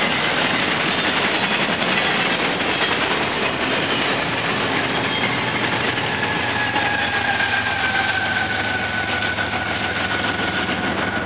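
Double-stack intermodal container cars rolling past at speed, a steady rush and rumble of steel wheels on rail. From about six seconds in, a thin high whine slides slowly lower.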